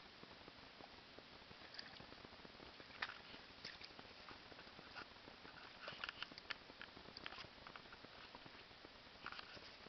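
A dog's paws stepping in shallow water over a pebble bottom: faint scattered clicks and light patter, thickest about six seconds in, over a quiet steady hiss.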